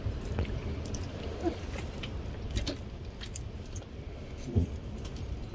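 Raw squid being pulled apart by hand on a stainless steel sink drainer: scattered soft wet handling sounds and light clicks against the metal, over a low steady rumble.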